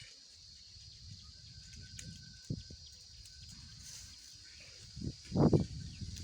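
Quiet farm ambience: a steady high-pitched insect hum over a low outdoor rumble. About five seconds in, an animal gives a short, louder call.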